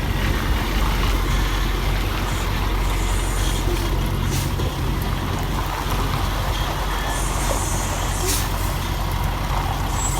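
Diesel semi-truck engine running steadily at low revs during a slow backing maneuver, with a few short hisses of air, typical of air brakes, a couple of times.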